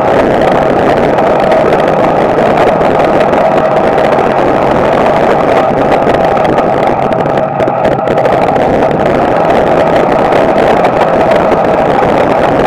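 Street stock race car's small-block Chevy V8 running hard at racing speed, heard loud and steady from inside the cockpit, with a brief dip in the engine sound about seven and a half seconds in.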